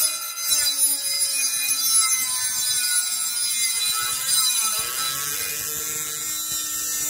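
High-speed handheld rotary tool with a cut-off disc cutting sheet metal: a steady high whine, its pitch dropping briefly about five seconds in before settling again.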